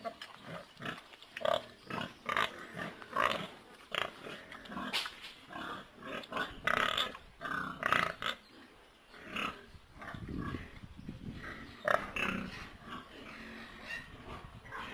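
Pigs vocalising: a rapid, irregular run of short calls overlapping one another.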